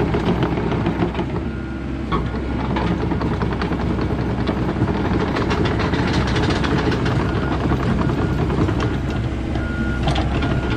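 Komatsu PC78US excavator's diesel engine running steadily, with scattered clicks and knocks from the machine over the drone.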